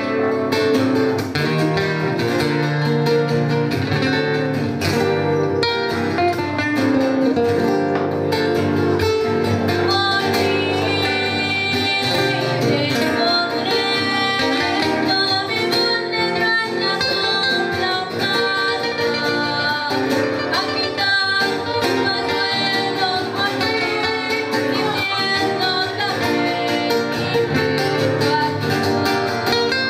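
Live acoustic music: two acoustic guitars strumming and plucking a folk accompaniment while a girl sings a melody into a microphone.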